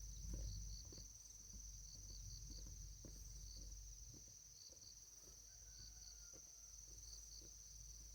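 Faint steady insect chorus: a continuous high buzz with short chirps repeating beneath it, over light taps and rustling.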